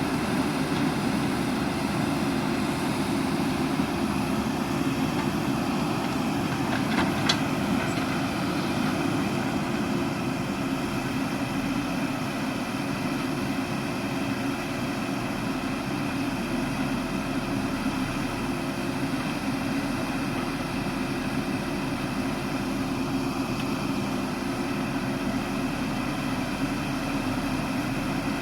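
Diesel engine of a JCB backhoe loader running steadily, with one brief sharp clank about seven seconds in.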